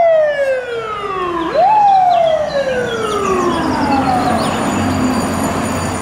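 Fire truck siren wailing: a long falling tone, pushed quickly back up about a second and a half in, then sliding slowly down again and fading out.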